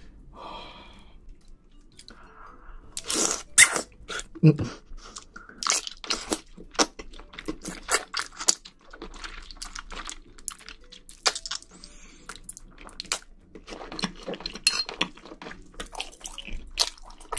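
Close-miked chewing of wide Chinese glass noodles and seafood in spicy sauce: a long run of sharp, wet crunching clicks, with the noodles sucked in at times. The eater thinks the noodles are slightly undercooked.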